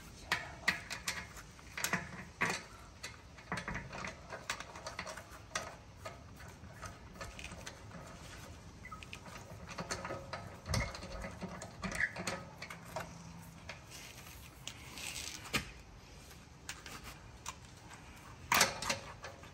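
Hand tools working on metal as a car's rear shock absorber is fitted: irregular clicks and light metallic taps, with a louder clatter near the end.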